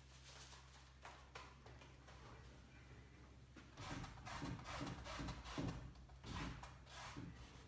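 Paintbrush scrubbing oil paint onto canvas in a run of short strokes, starting about four seconds in, over a steady low hum.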